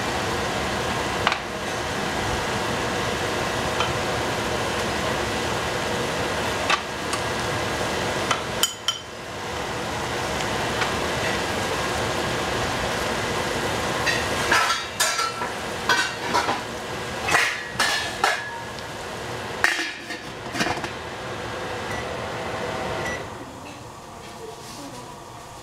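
Kitchen utensils and cookware clinking and knocking, with a quick run of sharp, briefly ringing clinks in the second half. Under them runs a steady rushing noise that drops away near the end.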